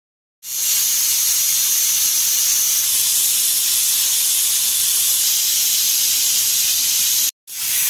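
Bakeman pressure cooker venting steam at pressure through its weight valve: a loud, steady hiss that starts about half a second in and breaks off briefly near the end.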